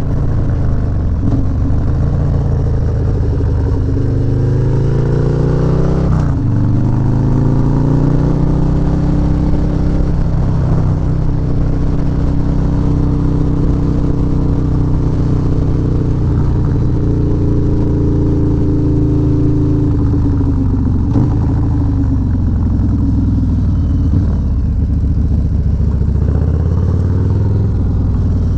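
Harley-Davidson V-twin through a Bassani Road Rage 3 two-into-one exhaust, under way. The engine note climbs under acceleration and drops sharply about six seconds in with an upshift, then holds a steady cruising pitch that eases off twice later on.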